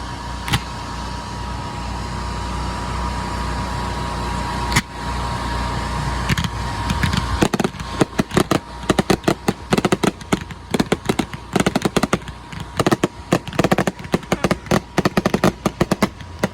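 Fireworks going off: a few single sharp bangs over a steady hiss, then, about halfway through, a rapid run of many small cracks several times a second, like crackle shells or a barrage.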